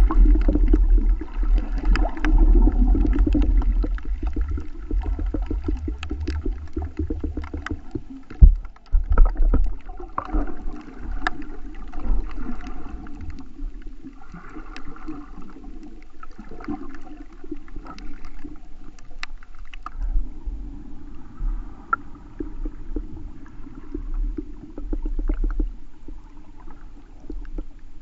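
Muffled underwater sound heard through a GoPro's waterproof housing: water sloshing and gurgling against the case, with scattered clicks. There is a heavy low rumble for the first several seconds and a single loud knock about eight seconds in.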